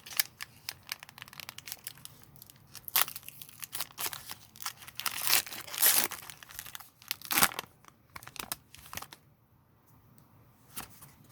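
Foil Pokémon booster pack wrapper crinkling and being torn open, a dense run of crackling rustles that dies down about nine seconds in, leaving a few light clicks.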